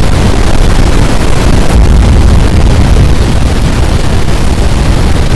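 Strong tornado winds buffeting the microphone: a loud, continuous, gusting low rumble with no let-up.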